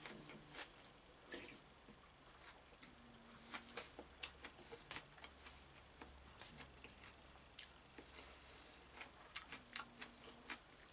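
Faint close-up eating sounds: a man taking a spoonful of svekolnik (cold beet soup) and chewing it, with many small, irregular wet mouth clicks.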